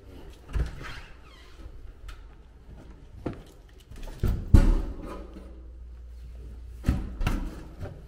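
Half a dozen knocks and clunks as a sheet-metal blower housing and a cordless impact driver are carried and handled; the loudest knock comes about halfway through.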